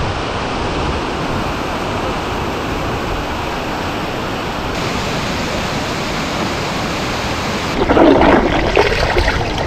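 Water rushing over a dam weir and down a rocky stream, a steady rush. About eight seconds in it turns louder and choppier: water splashing and lapping close by.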